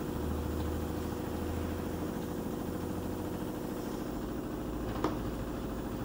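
LG front-loading washing machine running with a steady motor hum while it drains, its pump pushing water out through the drain hose. There is a short click about five seconds in.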